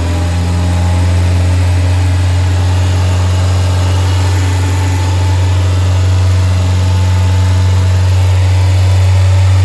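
Renault Clio's K4M 1.6 16-valve four-cylinder petrol engine idling steadily, heard close up with the bonnet open, as it warms towards its 90 °C running temperature after a thermostat replacement and coolant refill.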